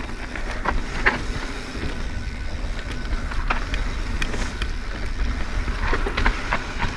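Mountain bike riding fast down a dirt trail: wind buffeting the microphone with a low rumble, tyres rolling on dirt, and scattered sharp clicks and rattles from the bike as it hits bumps.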